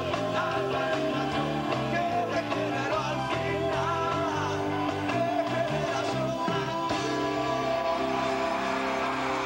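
Rock band playing live: electric guitars and bass, with a male lead voice singing into the microphone.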